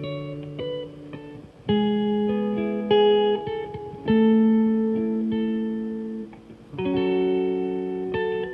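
Background music: slow plucked guitar, chords struck every second or two and left to ring out and fade.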